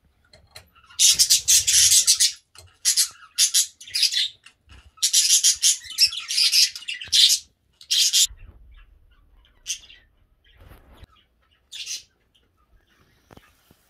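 A flock of budgerigars chirping and screeching in loud, harsh bursts for the first eight seconds, then only a few short calls.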